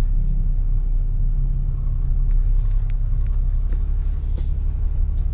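London bus engine running with a steady low rumble, with a few short hisses and clicks over it in the second half.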